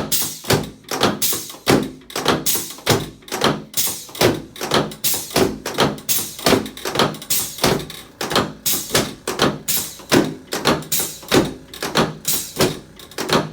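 Chiropractic drop table's section dropping again and again, a quick run of thunks about two to three a second, during drop-table adjustment of a right sacroiliac joint stuck in extension.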